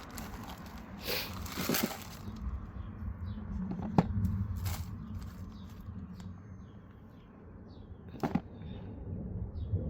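Rustling of packaging being handled, with a couple of sharp clicks, about four seconds in and again near the end; faint bird chirps sound behind it.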